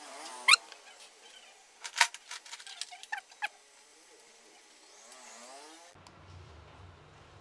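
Plastic fuel pump assembly being handled while a nylon cable tie is threaded around it: scattered sharp plastic clicks and short squeaks, one loud click about half a second in and a run of clicks about two to three and a half seconds in.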